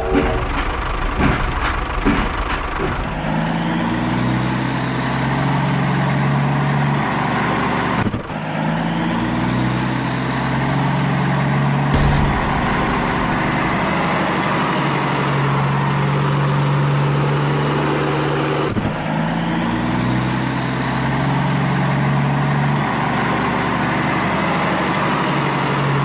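Tractor engine running and revving. A whine climbs and levels off, starting over several times with low engine tones that shift in pitch.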